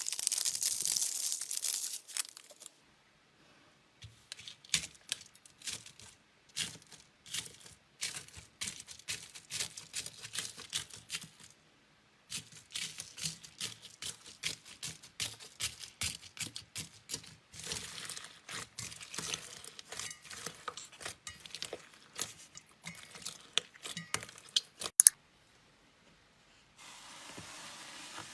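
Crunchy slime being squeezed and stretched by hand, giving dense irregular crackling and popping, with a burst of hissing crackle in the first two seconds and a few brief pauses.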